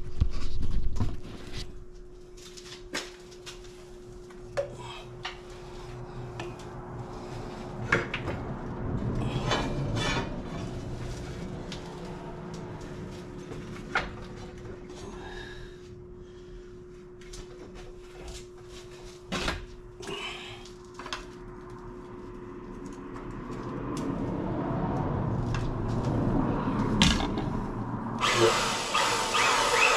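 Steel being handled and positioned in a homemade hydraulic press brake: scattered knocks and metal clanks over a steady hum. Near the end the press's electric hydraulic pump starts suddenly, run from its pendant control, and keeps running loudly.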